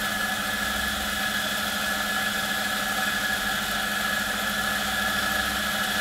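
On-demand espresso grinder's motor running steadily, grinding coffee through its burrs into a portafilter basket, with an even hum and a steady whine.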